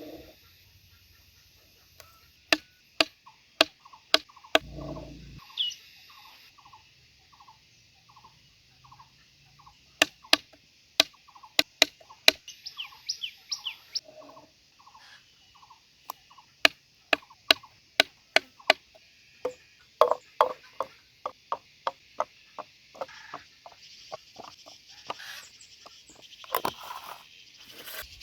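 Irregular sharp knocks and clicks, like hard objects being struck or worked, with a faint short note repeating about twice a second in the background through the first half.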